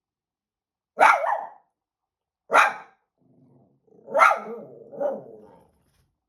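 Small dog barking three times, about a second and a half apart, the third bark running on into a longer, lower growly call.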